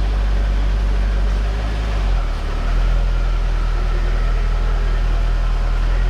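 Dodge Challenger's engine idling steadily, its note shifting briefly about two seconds in.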